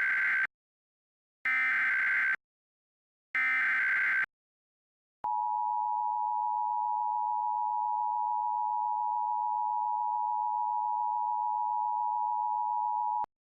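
Emergency Alert System header tones: three short bursts of SAME digital data warble about two seconds apart, then a steady two-tone EAS attention signal held for about eight seconds and cut off sharply.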